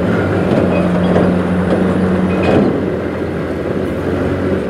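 Motorcycle riding at steady speed close behind a truck: a constant engine hum with wind and road rumble, the engine note easing a little about halfway through.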